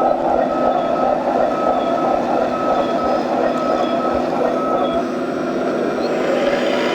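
Radio-controlled model construction machines running with a steady mechanical whir, and a regular high beeping that stops about five seconds in.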